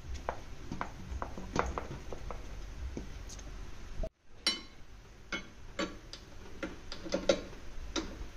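Irregular light clicks and knocks of a plastic bowl and metal parts against a stainless steel mixer bowl, with a ringing metallic clink about four and a half seconds in. A cluster of knocks near the end comes as the mixer's dough hook is fitted.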